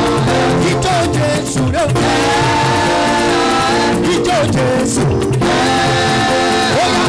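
Gospel praise music with a steady beat: a band with guitar and drums, and held sung notes that slide between pitches.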